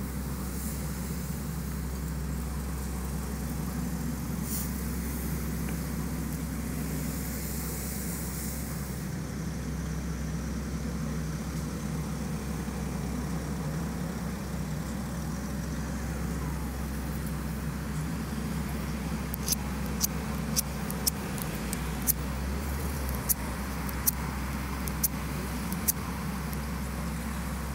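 Steady low rumble of cars and road traffic moving slowly past. From about two-thirds of the way in, a run of sharp ticks comes roughly once a second.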